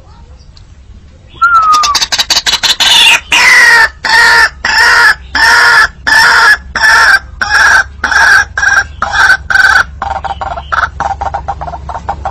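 White-breasted waterhen (ruak-ruak) calling in a recorded lure call: after about a second and a half, a loud, long series of repeated harsh pitched notes at roughly two a second, then a quieter, faster run of notes near the end.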